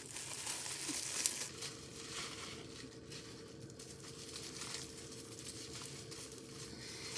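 Packaging wrap crinkling and rustling in irregular handling as an item is unwrapped by hand, over a faint steady hum.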